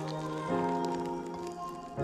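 Background music with held notes, changing chord about half a second in and again near the end.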